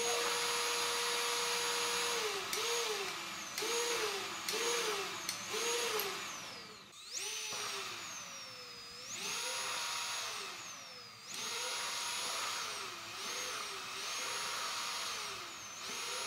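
Homemade vacuum cleaner's electric motor and fan whining with a rush of air, its speed set by a hand-pulled throttle cable turning a servo tester. It runs steady for about two seconds, then its pitch keeps dipping and climbing back as the cable is pulled and released, some swings quick and some slower.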